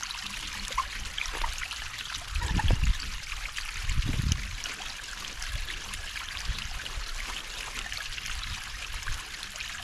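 Water welling up through the open multiport valve of a pool sand filter, whose lid and spider gasket are off, and trickling and splashing down the outside of the tank in a steady watery hiss. Twice, a few seconds in, there is a low bump or rumble.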